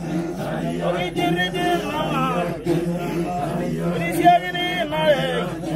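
Maasai men chanting together, a steady low hum held under a wavering voice line.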